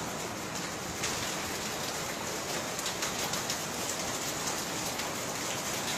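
Steady rain pattering on a sheet roof overhead, a dense even patter of drops. The rain is laden with volcanic ash.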